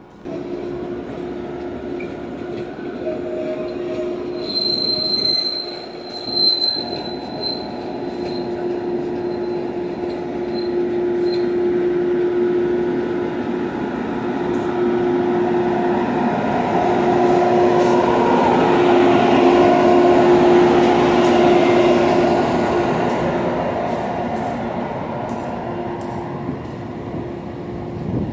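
SEPTA Regional Rail push-pull train rolling into the station and along the platform. A steady electric hum runs throughout, and a high wheel squeal sounds from about 4 to 11 seconds in. The rolling noise builds to its loudest about two-thirds of the way through and then eases, with a few sharp clicks near the end.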